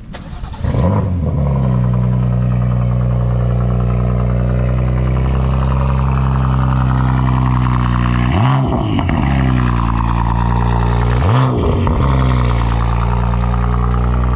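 Tuned 700 hp BMW M4's twin-turbo inline-six starting up about a second in and settling into a loud, steady idle. Two quick throttle blips, rising and falling in pitch, come about eight and eleven seconds in.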